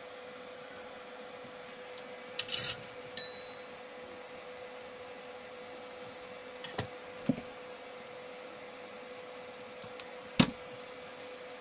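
Soldering iron and relay being handled on a workbench: a brief scrape, then a small metallic clink that rings for a moment about three seconds in, a few light clicks around seven seconds, and a sharper knock about ten seconds in, over a steady faint hum.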